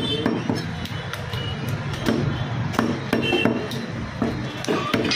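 Meat cleaver chopping goat meat on a wooden butcher's block: a handful of sharp, irregularly spaced chops with brief metallic ringing, over a steady background din.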